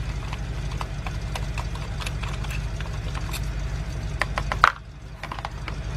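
BMW 328i engine idling with a steady low pulsing beat while the car is being diagnosed for a misfire, overlaid with light clicks and a sharper click a little past four seconds in as parts under the hood are handled. The engine sound cuts out for about a second near the end, then returns.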